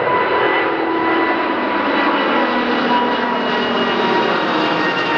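Airbus A380's four Rolls-Royce Trent 900 turbofans at climb power as the airliner passes overhead after takeoff. A loud, steady jet noise is carried with whining fan tones, and some of its lower tones slowly drop in pitch as it moves away.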